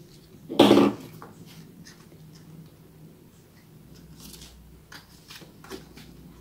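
Light rustling, taps and creases of paper and card being folded and pressed by hand, with one short, loud, pitched burst about half a second in.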